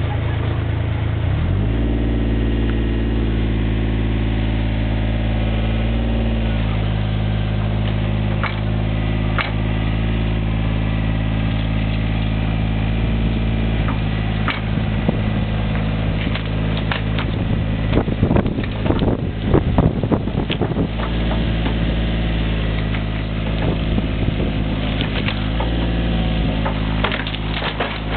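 Takeuchi mini excavator's diesel engine running hard under load. Its pitch steps up about a second and a half in and then holds. Knocks and cracks from the tracks grinding over ground and plywood come scattered through, thickest and loudest in the middle as the machine crawls up the slope onto the boards.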